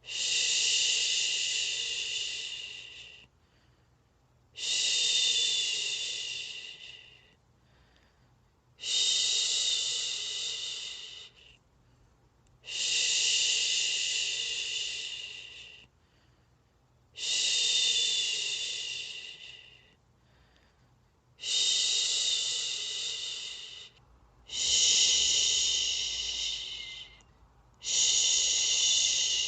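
A person shushing a baby to sleep with long, steady 'shhh' sounds, about eight of them, each starting suddenly, lasting about three seconds and fading away, with a brief pause for breath between them.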